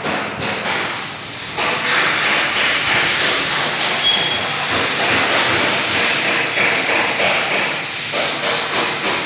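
Qualitas Q600P wall fans running, a steady loud rush of air that jumps up about a second and a half in, as if switched to a higher speed or turned toward the microphone.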